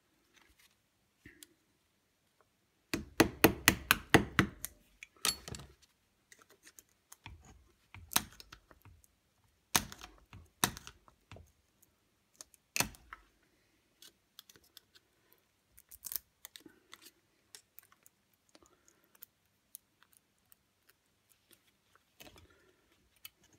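Hand tools cracking and prying away the old plastic-bodied slip rings on a Bosch alternator rotor shaft: a quick run of about ten sharp snaps a few seconds in, then scattered single clicks and small scrapes as the pieces break off.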